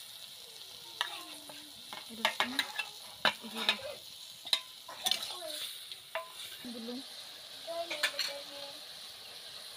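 A metal spoon clinks and scrapes against a steel plate and the rim of an aluminium wok as spice pastes are scraped onto mutton pieces, with a low sizzle from the pan underneath. The clinks come in a cluster over the first half and again about eight seconds in.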